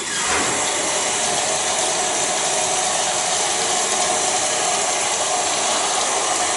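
Kitchen tap running into a sink, a steady rushing hiss, with onions and tomatoes being washed under the stream.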